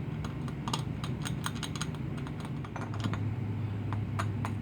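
A small hand tool picking and scraping leftover red paint from the lettering of cast-iron utility knife halves: light, irregular clicks and scratches of the tool tip on the metal, over a steady low hum.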